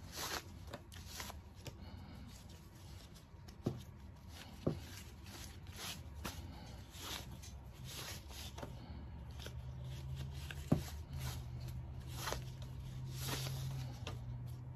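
Hands working a jammed ratchet strap loose: nylon webbing rustling and sliding against the metal ratchet in many short strokes, with three sharp clicks. A low steady hum comes in about two-thirds of the way through.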